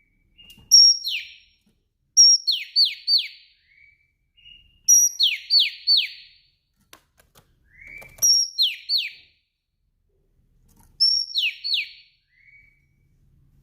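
Female oriental magpie-robin calling. Short phrases repeat about every two to three seconds, each a brief high note followed by two or three quick downward-sweeping whistles, with a few faint short notes between phrases.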